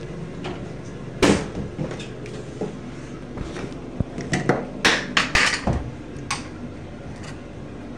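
Several sharp knocks and clatters, one about a second in and a quick cluster between four and six seconds, over a steady low background hum.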